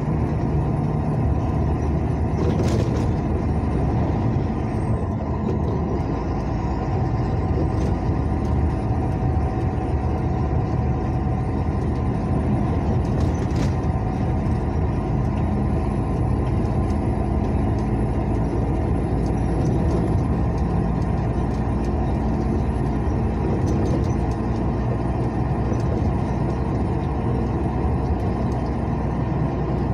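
A motor vehicle driving along a highway, a steady mix of engine and tyre noise, with two short knocks about 3 and 13 seconds in.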